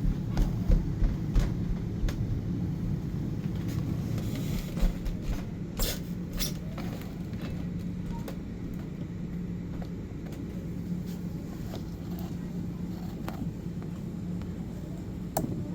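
Dull thumps of children running on the floor upstairs over a steady low hum, coming about twice a second for the first few seconds and then thinning out. A few sharp clicks come from close by, the clearest about six seconds in.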